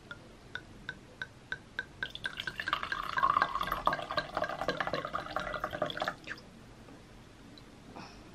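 Red wine poured from a glass bottle into a stemmed wine glass: a few light, evenly spaced ticks at first, then about four seconds of glugging and splashing that stop suddenly.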